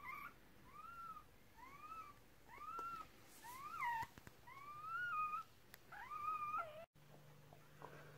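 Newborn Cardigan Welsh Corgi puppy crying: about seven short, high cries, roughly one a second, each rising and falling in pitch, the last few drawn out. A steady low hum comes in near the end.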